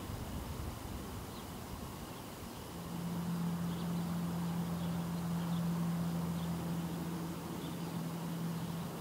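A low, steady engine-like hum sets in about three seconds in and holds at one pitch until near the end, over outdoor background noise with a few faint, short, high chirps.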